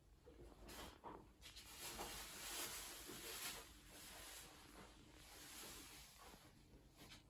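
Near silence: faint room tone with a soft rustling hiss that swells a little between about two and four seconds in.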